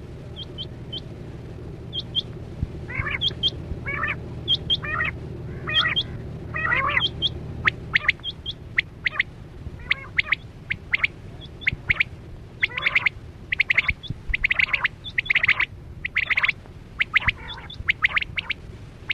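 Quail calling: a quick run of short, high chirps, mixed with bursts of harsher, rasping notes repeated several times.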